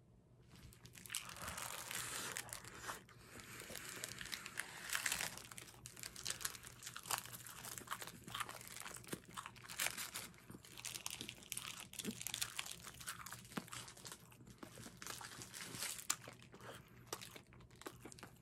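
Plastic film wrapper of a convenience-store tuna-mayonnaise triangle kimbap crinkling and crackling close to the microphone as it is torn open and handled, in irregular bursts.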